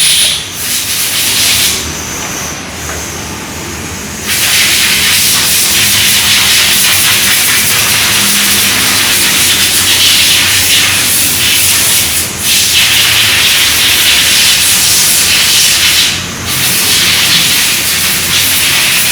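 A loud, steady, mostly high-pitched hiss. It eases off for about two seconds near the start and breaks off briefly twice later.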